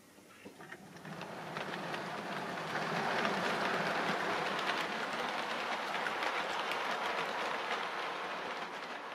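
H0-scale model train running on the layout's track: a dense rattle of wheels clicking over the rails that builds up about a second in and then holds steady.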